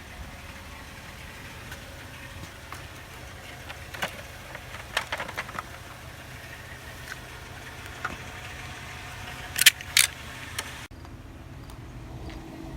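Vehicle engine running with a steady low rumble, with scattered light clicks and two sharp, loud clacks about ten seconds in.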